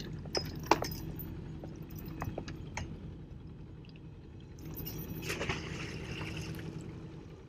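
Anchor thrown overboard, splashing into the water about five seconds in, over the low steady hum of the sailboat's engine running in reverse. A few light knocks come in the first three seconds.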